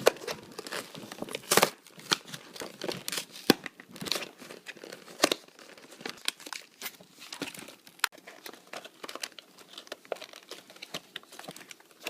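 Plastic and cardboard toy packaging being torn open and handled, with irregular crinkling and sharp crackles throughout.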